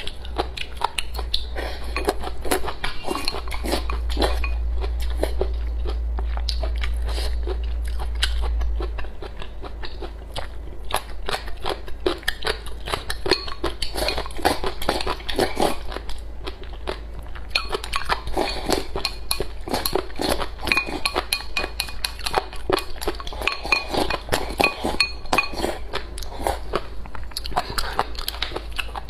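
Close-up chewing of crisp vegetables, with many short crunches and occasional clinks of chopsticks against a bowl. A low hum lies under the first nine seconds.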